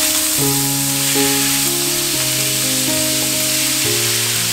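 Marinated beef and sliced onion sizzling loudly and steadily as they are stir-fried in a hot frying pan, under background music of held chords.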